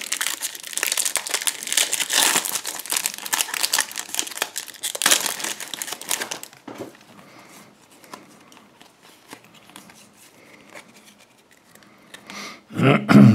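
Foil wrapper of a trading-card booster pack crinkling and tearing open, a dense crackle for about six seconds. After that only faint light clicks and rustles as the cards are taken out and handled.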